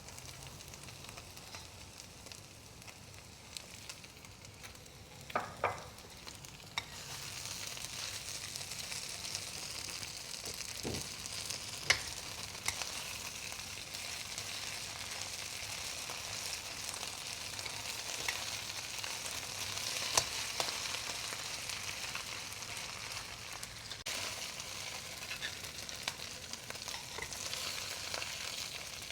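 Food frying in hot oil in a pan with a steady sizzle that gets louder about seven seconds in. A few sharp clinks and scrapes come from a metal utensil stirring against the pan.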